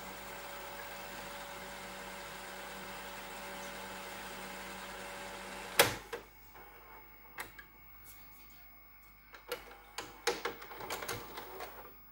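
Sony SLV-E720 VHS video recorder fast-rewinding a tape with a steady mechanical whir, which stops about six seconds in with a loud clunk. After it, a scatter of softer clicks and small mechanical knocks from the tape transport.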